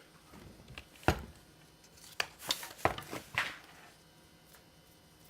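Handling noises: a sharp knock about a second in, then a quick cluster of knocks and clicks a little past the middle, as hard objects are moved about.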